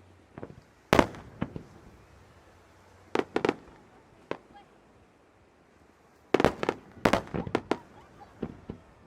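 Fireworks bursting in sharp, irregular bangs: a loud cluster about a second in, another around three seconds, then a quick string of bangs from about six and a half seconds.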